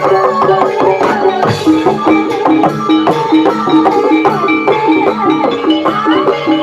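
Jathilan gamelan music: metal keyed instruments strike short repeating notes in a steady rhythm over drums.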